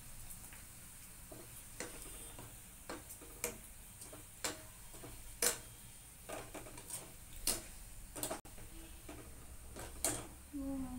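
A metal slotted spoon clinking and scraping against a kadai as fryums are stirred and lifted out of hot oil. The clicks are sharp and irregular, about one or two a second, and some ring briefly.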